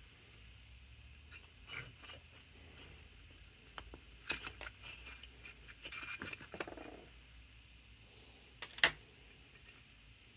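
Small Carter Thermoquad carburetor parts being handled and set down on a workbench: scattered light clicks and clinks, the sharpest a double click near the end.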